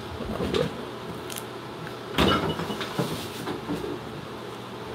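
Kitchen handling noise at the refrigerator: the door and things inside it being moved. A louder clunk comes about two seconds in, among a few lighter knocks.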